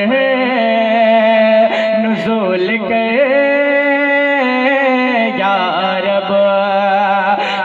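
A man singing a naat (Urdu devotional song) into a microphone, drawing out long held notes that waver and bend in pitch.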